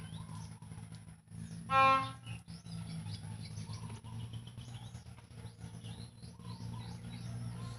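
A goose honks once, loudly, about two seconds in. Small birds chirp in the background over a steady low hum.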